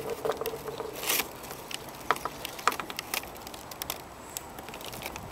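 Mute swan pecking bread off a wooden dock: irregular sharp taps and clicks of its bill on the boards, with a short rustling burst about a second in.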